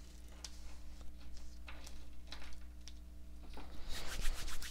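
Tarot cards being handled and moved about on a table: scattered light taps and slides, with a quick run of clicks near the end, over a steady low electrical hum.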